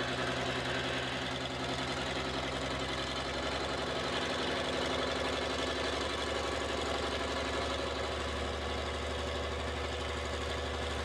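Cummins 220 diesel engine of a Lima Model 65-T cable shovel running steadily, with an even, fast firing beat.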